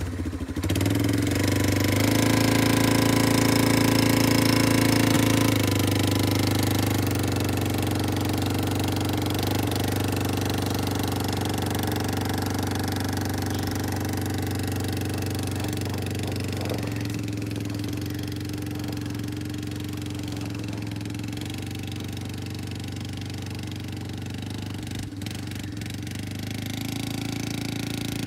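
Yamaha Timberwolf ATV's single-cylinder four-stroke engine running steadily under load while towing an SUV on a strap. It is loudest in the first few seconds and slowly fades as the quad pulls away.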